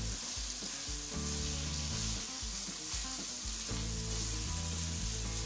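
Minced meat with green onions and green chillies sizzling as it fries in a nonstick wok, stirred steadily with a spatula.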